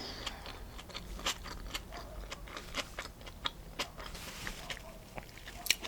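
Close-miked chewing of a turkey and cheese sandwich on sourdough bread: irregular small wet clicks and smacks from the mouth.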